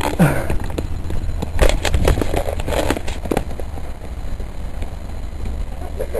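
Handling noise from a handheld camera being swung around: rubbing, clicks and knocks on the microphone over a constant low rumble, with a short vocal sound just after the start.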